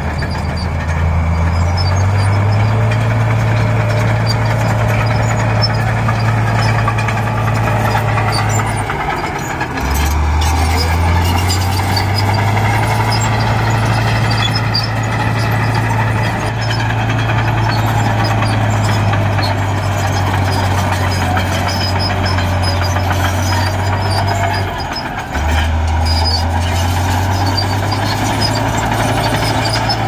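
Heavy diesel engine of earthmoving machinery running steadily at work. Its low drone dips twice, about ten seconds in and near the end, then picks up again.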